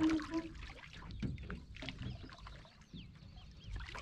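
A fishing hand line being worked over the side of a wooden boat: scattered small knocks and splashes of water, with a few short high chirps in the middle.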